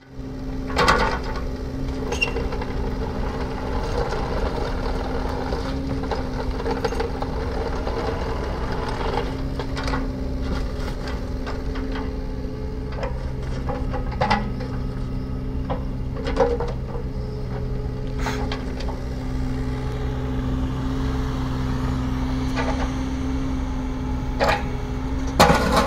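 2011 Yanmar VIO20-4 mini excavator's diesel engine running steadily while the arm and bucket are worked and the upper structure swings round, with a few sharp clunks from the arm and bucket, the loudest near the end.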